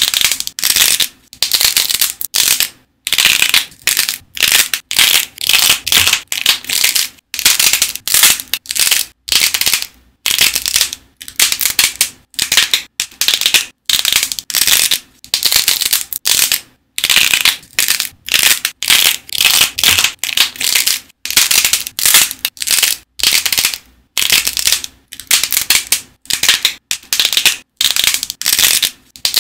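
Dried clay shell with a glossy coating crackling and crunching as thumbs press into it and crack it. It comes in short, crisp bursts, about one to two a second, with brief quiet gaps between them.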